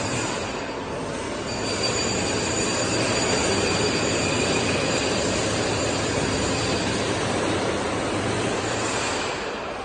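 Rotary table of a Sanco SHM 11025R CNC horizontal boring mill turning under power: a steady mechanical drive noise with a thin high whine. It gets louder about a second and a half in and eases off near the end.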